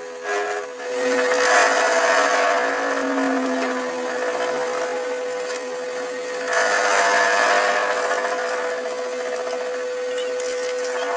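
A metalworking machine in a repair shop running with a steady hum, with two longer spells of louder, harsher tool-on-metal noise, the first starting about a second in and the second about halfway through.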